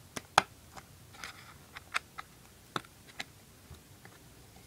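Plastic clips of a rugged Griffin Survivor iPod case clicking as the case is pried apart by hand: a run of sharp, separate clicks, the loudest about half a second in, with a short scrape a little over a second in.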